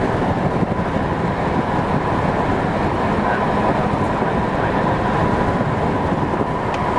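Steady road noise of a car driving at speed, heard from inside the vehicle: a continuous rumble of tyres and engine with a thin steady whine above it.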